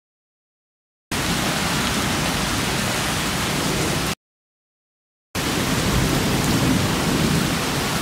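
Heavy rain falling on wet pavement, a steady hiss. It starts suddenly about a second in, cuts off dead about four seconds in, and comes back about a second later.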